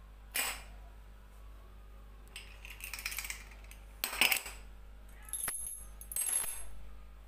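A small steel padlock and a bunch of metal keys clinking and scraping across a tabletop in about five short bursts. There is a sharp clink just after the start, a rattling stretch, the loudest clatter about four seconds in, and two more clinking rattles near the end.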